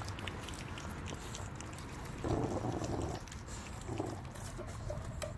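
Renascence Bulldogge puppy gnawing and crunching a raw turkey carcass, its teeth cracking the bones in many small clicks. About two seconds in there is a short, louder dog vocalization, with a briefer one near four seconds.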